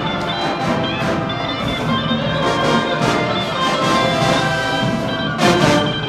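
High school show-style marching band playing a loud brass tune, with trumpets, saxophones and sousaphones, and a sharp accented hit near the end.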